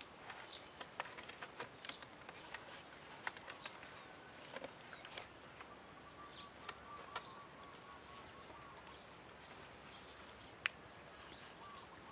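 Faint scattered clicks, taps and rustles of hands working wooden poles and tying lashings, with one sharp click near the end. A faint wavering bird call runs through the middle.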